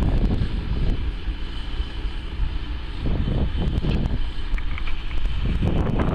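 Zetor 9245 tractor's diesel engine running steadily while powering a Nokka snow blower, with gusty wind noise and crackles on the microphone.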